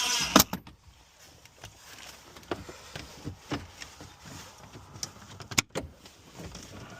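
Small clicks and taps of a car key and its plastic shell being handled, with a sharp click about half a second in and two more sharp clicks near the end.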